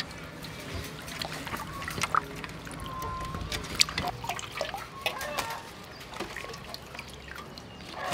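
Water sloshing, splashing and dripping in a metal basin as guavas with their leafy stems are washed by hand and lifted out, in short, irregular splashes and drips.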